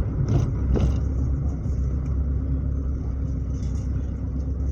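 Chevrolet Chevy's engine and modified exhaust, with a bullet muffler in place of the original resonator behind the catalytic converter, giving a steady low, hollow rumble while the car cruises slowly.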